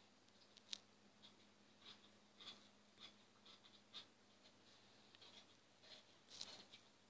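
Near silence with faint, scattered light taps and scratchy ticks, a few each second, like light handling of a phone or a fingertip on its screen.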